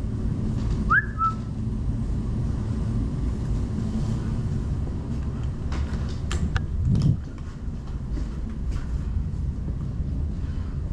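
Low, steady rumble of movement and handling noise on a body-worn camera as a player moves through an indoor arena. A short rising squeak comes about a second in, and a few sharp clicks and a low thump come around six to seven seconds.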